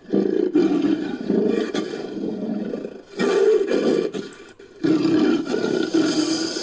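Designed creature roars for the Orobon, layered from lion, jaguar, leopard and crocodilian recordings: a series of deep, loud roars, three long ones broken by brief pauses.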